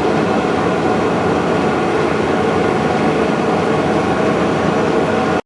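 Metal lathe running steadily as a boring bar takes the first internal threading pass, 5 threads per inch, in a steel nut. The sound cuts off suddenly near the end.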